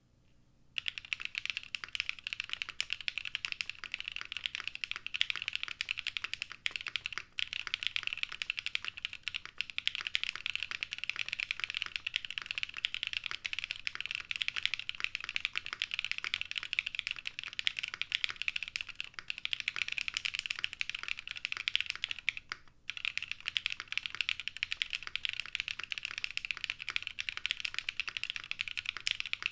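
Fast, continuous typing on a mechanical keyboard with linear Novelkeys Cream switches mounted on an undampened aluminium plate, a dense stream of keystroke clacks. It starts about a second in, with two brief pauses partway through.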